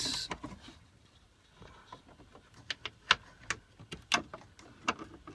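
Scattered light clicks and knocks of hand work on a dash panel: the dual fuel tank toggle switch and its wiring being pushed back into place. The knocks come irregularly, most of them in the second half.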